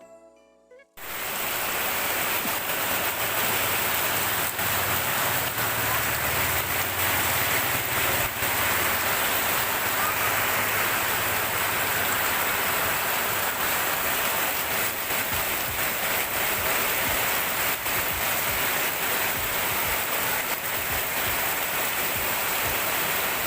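Heavy rain pouring steadily, a dense even hiss with scattered sharper drop hits; it comes in suddenly about a second in.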